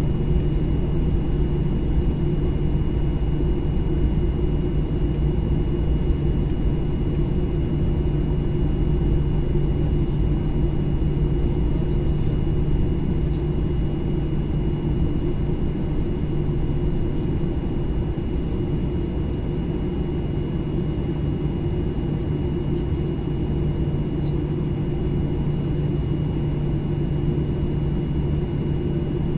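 Jet airliner cabin noise while taxiing, heard from inside the cabin: a steady low rumble of engines, airflow and rolling, with a thin steady high whine over it.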